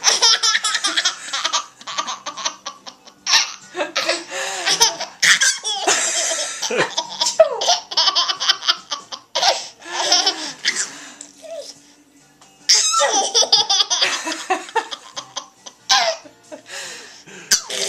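A baby laughing hard in rapid repeated fits, set off by an adult's sneezes. The laughter breaks off for about a second about two-thirds of the way through, then starts up again.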